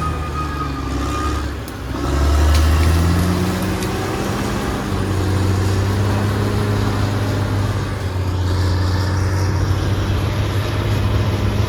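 Caterpillar D6R XL bulldozer's diesel engine running steadily under load. It sags briefly just under two seconds in, then pulls harder at a higher pitch.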